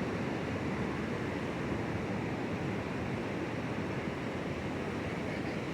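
Steady wash of ocean surf breaking on the beach, with some wind on the microphone.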